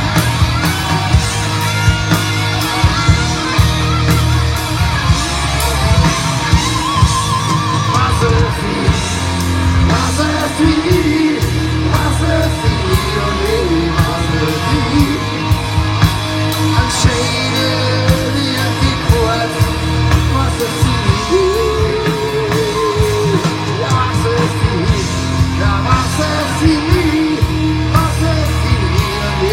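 Live rock band playing a song at full volume: a steady drum beat, bass and electric guitar, with voices singing and shouting along.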